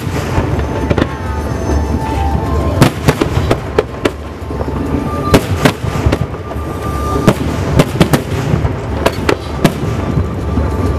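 Aerial fireworks shells bursting in a rapid, irregular string of sharp bangs over a continuous low rumble.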